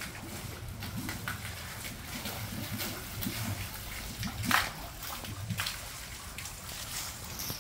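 Water trickling and splashing in an outdoor water feature that has just started running, with one brief louder splash about four and a half seconds in.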